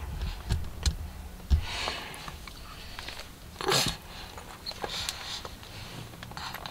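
Two short breathy sniffs close to the microphone, about two seconds apart, with a few faint clicks in between.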